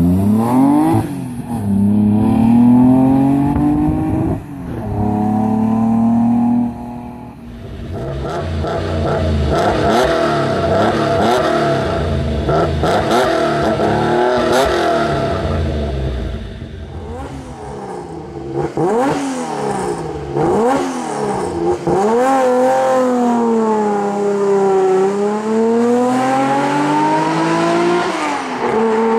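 Classic Nissan Skyline Hakosuka (C10) straight-six engines accelerating and revving. The pitch climbs and drops with gear changes in the first seconds, sharp blips and revs come in the middle, and a long fall and steady climb in pitch comes near the end. The last part is from a car fitted with a 6-2 exhaust manifold and dual exhaust.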